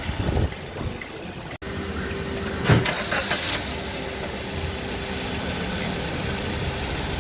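Maruti Suzuki Ertiga petrol engine running with a steady hum and a held tone. The sound drops out briefly about one and a half seconds in, and a short knock comes about a second later. The owner blames the engine-room noise, which he places around 2000 rpm, on a faulty right-side engine mount.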